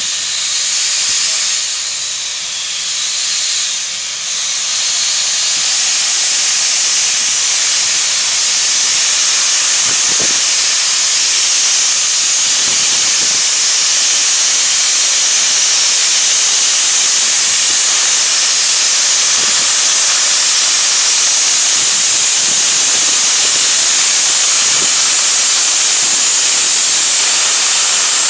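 Loud, steady hiss of steam blowing from the open cylinder cocks of a 4-4-0 steam locomotive as it moves slowly out of the engine house. The hiss wavers a little in the first few seconds, then holds even.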